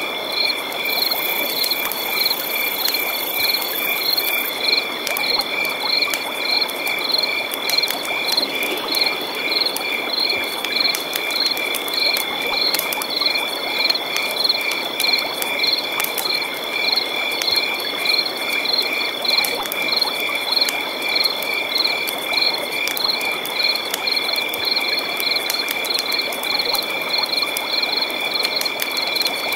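Night chorus of frogs and insects: a steady high insect trill with rhythmic pulsed calls repeating a few times a second, over a steady rushing background.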